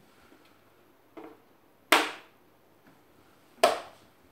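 Small magnets clacking onto a metal whiteboard as they are moved. There are two sharp clacks about a second and a half apart, with a fainter tap just before the first.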